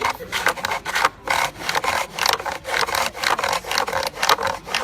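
Wood turning on a foot-driven Moroccan bow lathe: a hand-held tool scrapes against the spinning wood in rhythmic rasping strokes, about three a second, as the bow drives the piece back and forth.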